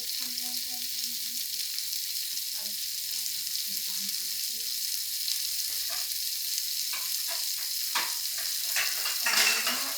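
Shrimp frying in hot oil in a pan, a steady sizzle, with scrapes and knocks of stirring from about the middle on.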